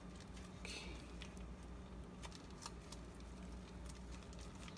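Faint handling of raw sausage meat being squeezed out of its tube casing, with a few small clicks and soft squishing, over a low steady room hum.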